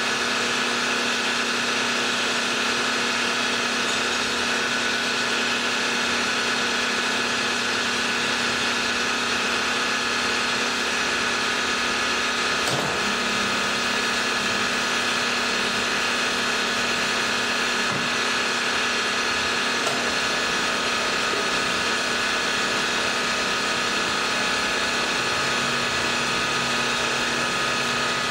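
Milling machine spindle running with a chamfer mill cutting a bevel along the edges of a metal part. It makes a steady machine sound with several high held tones, at an even level throughout.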